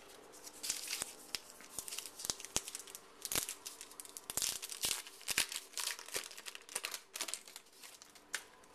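Trading-card pack wrapper being torn open and crinkled by hand, a run of irregular crackling and tearing.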